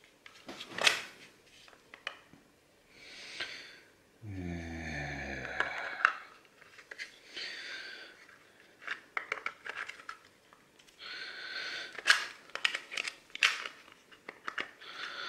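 Small metal parts of a Mul-T-Lock gear stick lock being handled and fitted back together: scattered sharp clicks and scrapes with rustling between. About four seconds in, a short low hum from a person with falling pitch.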